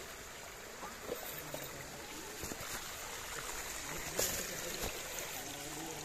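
Shallow stream water trickling and flowing, with a few sharp knocks scattered through it as the RC crawler trucks work over the rocks in the water.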